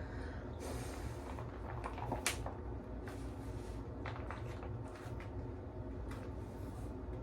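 Faint handling sounds: soft rustling and a few light clicks, the sharpest about two seconds in, over a steady low hum.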